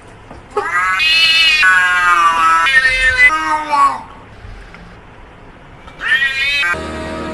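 A cat meowing: several long, drawn-out meows one after another, then a single shorter meow about six seconds in.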